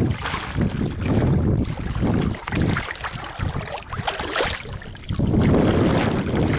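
Wind buffeting the microphone, with water sloshing against a kayak; the noise swells and drops unevenly.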